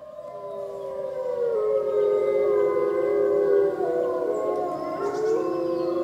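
A pack of wolves howling in chorus: several long, overlapping howls that rise and fall in pitch, fading in over the first two seconds.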